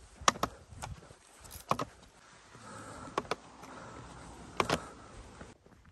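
A hiker walking on a hard path: sharp taps, mostly in pairs about every second and a half, over a faint steady rushing sound that drops away abruptly near the end.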